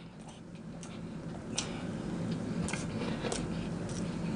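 Close-miked chewing of a mouthful of meatloaf with the mouth closed: a few soft, irregular wet mouth clicks over a faint steady hum.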